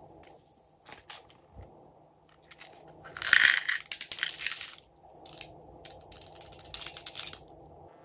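A hard plastic toy case being handled: two stretches of dense clicking and rattling, the first about three seconds in and the second about six seconds in, with a couple of single clicks before them.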